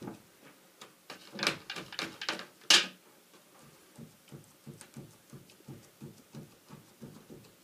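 Makeup sponge dabbing decoupage medium through a stencil onto cardstock: a few louder rubbing strokes between one and three seconds in, the loudest near three seconds, then a run of soft, quick dabs, about four a second.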